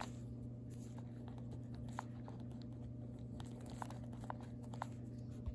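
Pen writing on lined paper: faint scratching with a few soft ticks of the pen tip as the words are written, over a low steady hum.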